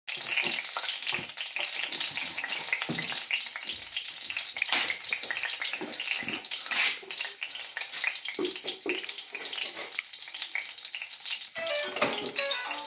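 Cooking oil crackling and sizzling as it heats in a steel kadai. Music with a melody comes in near the end.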